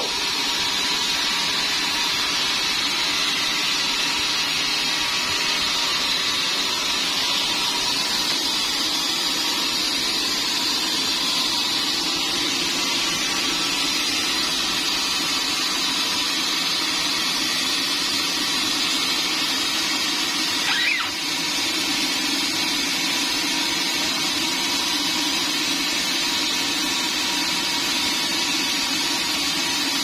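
Band sawmill running idle, not cutting: a steady, even machine whine and hum from its motor and blade.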